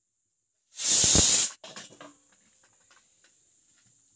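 Pressure cooker's weight valve letting off a sudden loud burst of steam hiss, under a second long, about a second in, as the cooker is moved while still under pressure. A few faint knocks follow.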